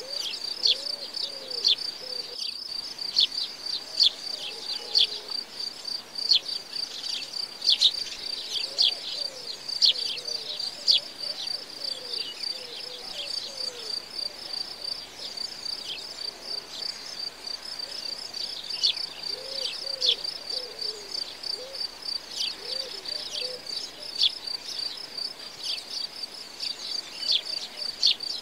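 Insects trilling steadily at a high pitch, with frequent short sharp chirps on top and faint lower warbling calls behind.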